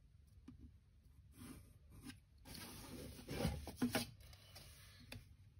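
Faint pencil scratching on paper, then about halfway through a louder spell of rustling and scraping with a few light knocks as plastic drawing instruments, a set square and then a ruler, are moved across the paper sheets.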